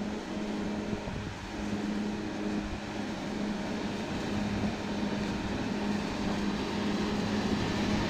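Wheel loader's diesel engine running steadily under load, a constant drone, as its front plow blade pushes through a bank of snow.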